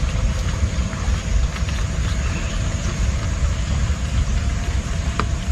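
Steady rain on a tent: an even hiss over a heavy low rumble, with a few sharp drip ticks, the loudest about five seconds in.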